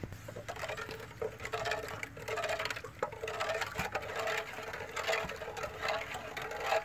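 Wooden spoon stirring liquid in an earthenware pot: repeated sloshing and scraping strokes, with a steady droning tone underneath.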